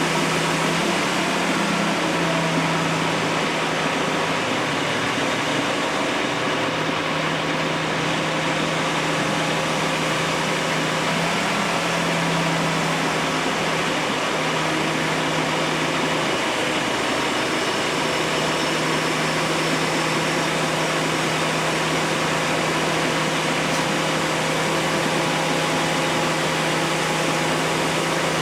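Steady mechanical drone, like an engine or machine running, with a constant low hum.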